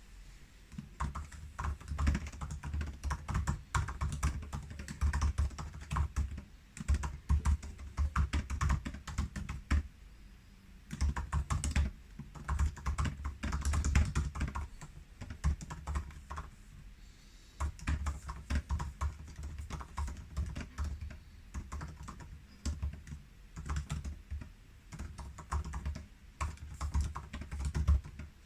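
Typing on a 2019 13-inch MacBook Pro's butterfly keyboard: fast runs of short, clicky keystrokes with brief pauses between bursts.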